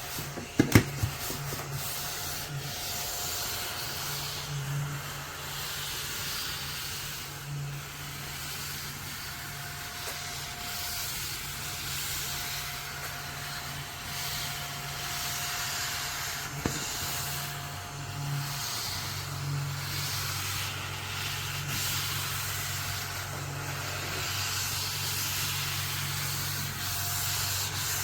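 AA-battery mini desktop vacuum cleaner running: a steady low motor hum under an even airflow hiss. A few sharp knocks come just under a second in, and one more near the middle.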